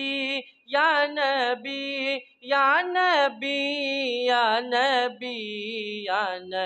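A boy singing a naat, an Urdu devotional song, unaccompanied into a microphone. One voice holds long notes that slide and waver in pitch, with two brief breaks between phrases near the start.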